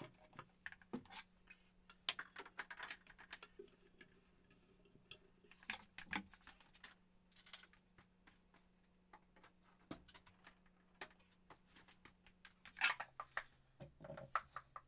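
Scattered light clicks, taps and knocks of someone handling tools and gear, over a faint steady hum that drops in pitch near the end.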